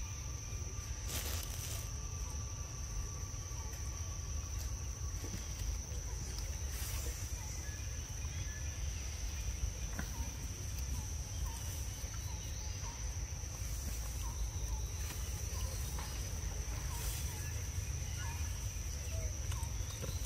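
Outdoor ambience: a steady high-pitched insect drone over a low rumble, with faint short chirps repeating about once a second through the second half.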